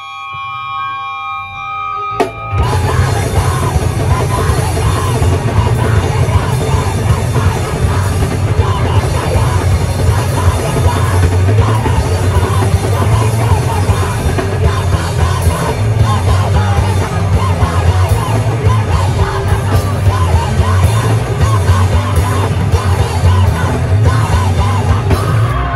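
A live rock band playing loud, with drum kit, guitars and vocals. The full band comes in suddenly about two seconds in, after a short stretch of quieter steady tones.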